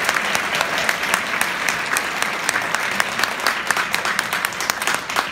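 Audience applauding in a concert hall: dense clapping from many hands that begins to thin out near the end.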